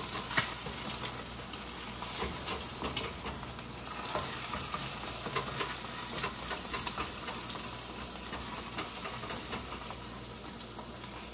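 Food sizzling as it fries in a pan, with scattered light clicks and scrapes of metal utensils stirring and turning it.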